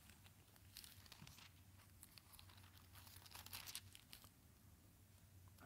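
Faint rustling and crinkling of thin Bible pages being turned, in short bursts about a second in and again around three seconds in, over near silence.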